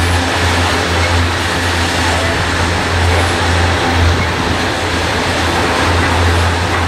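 Freight train of tank cars rolling past at track side: a steady, loud rolling noise of steel wheels on the rails.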